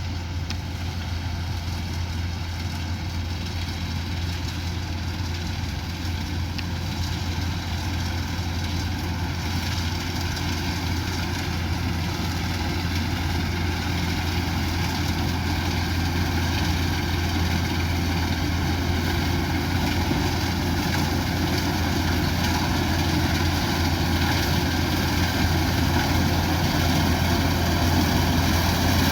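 Combine harvester engine running steadily with a heavy low hum, slowly growing louder.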